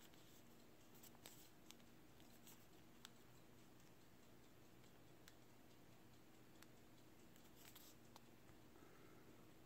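Near silence: room tone with a faint steady hum and a few soft, scattered clicks.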